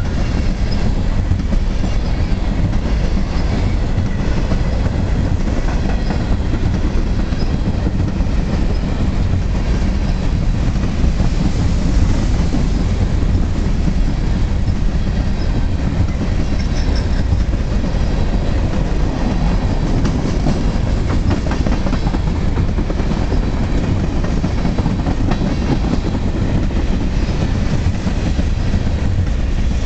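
Freight train of covered hopper cars rolling past: a steady, loud rumble of steel wheels on rail with continuous clickety-clack.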